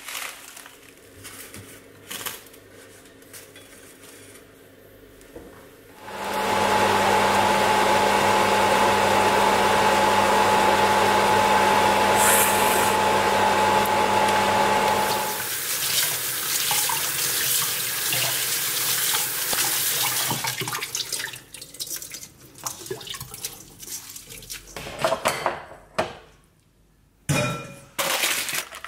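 Kitchen water noise while noodles are cooked and rinsed: a steady rush of water with a steady hum from about six seconds in to about fifteen, then a softer rush and scattered clatter of utensils and handling.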